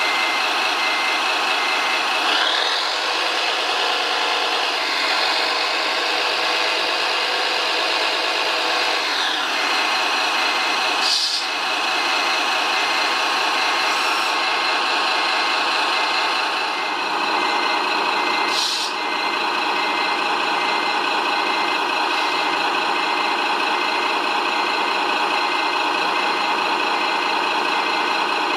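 Radio-controlled model Liebherr mobile crane at work: a steady mechanical hum with a regular electronic warning beep. A motor whine rises in pitch a few seconds in, holds, and falls away again after about seven seconds as the load is hoisted. Two sharp clicks come later.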